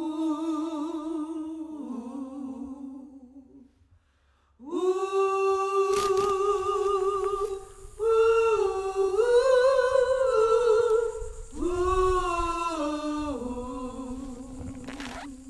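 A single voice humming a slow, unaccompanied melody, holding long notes with a wavering vibrato in phrases of a few seconds, with a short break about four seconds in.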